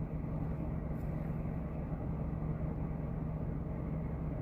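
Car running, a steady low hum and rumble heard from inside the cabin.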